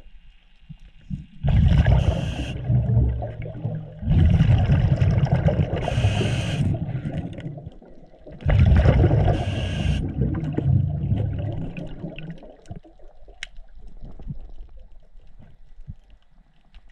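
Scuba regulator exhaust: a diver's exhaled air bubbling out in three long gurgling bursts a few seconds apart, with a softer hiss of breathing between, fading quieter in the last few seconds.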